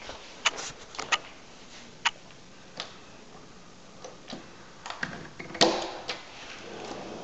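Handling noise from a handheld camera held close to a window: about nine irregular, sharp clicks and taps, the loudest a little past halfway.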